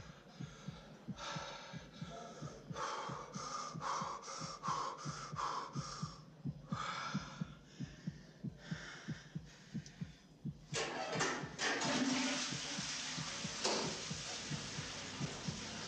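Heartbeat sound effect, a steady low beat about twice a second that builds tension. Over it come intermittent rustling sounds, then from about eleven seconds in a steady rushing noise.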